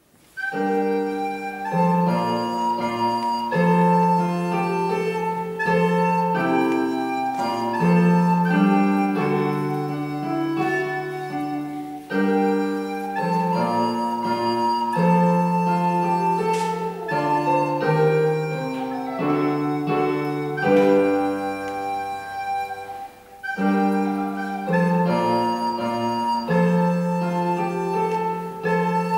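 Recorder playing a pavane melody in held notes over piano accompaniment, starting suddenly at the beginning.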